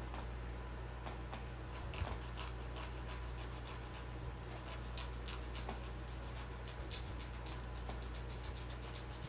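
Faint, irregular scratchy strokes of a hand nail file rasping on a puppy's claws, over a low steady hum.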